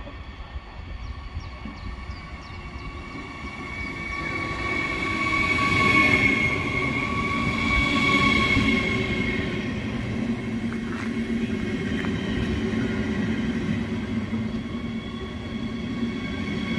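RRX Siemens Desiro HC double-deck electric multiple unit pulling in alongside the platform. A rumble of running gear carries steady high whining tones that grow louder over the first six seconds and then hold.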